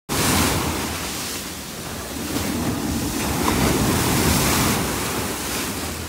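Ocean surf breaking and washing up onto a sandy beach, the foam rushing in and draining back.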